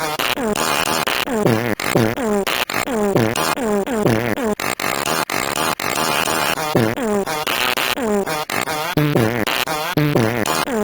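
A string of fart sounds played back to back with no pause, each a buzzing blurt whose pitch bends up and down, with sudden cuts between them.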